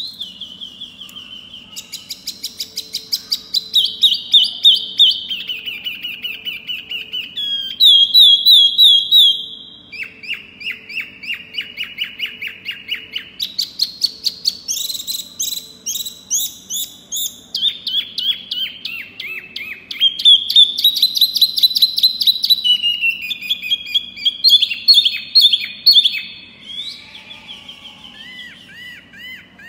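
A caged wambi mini songbird singing a long, varied song of very rapid chattering trills, many notes a second. The phrases change every few seconds, stepping up and down in pitch, with some runs sliding downward.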